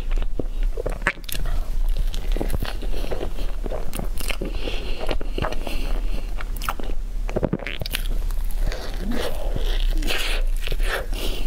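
Close-miked eating: biting into and chewing a soft green cake roll, with many sharp, irregular mouth clicks and squelches.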